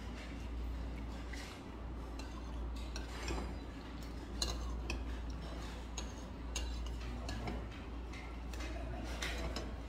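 A metal spoon clinking and scraping against ceramic bowls while a man eats, in scattered sharp clicks several times over, with mouth noises of eating.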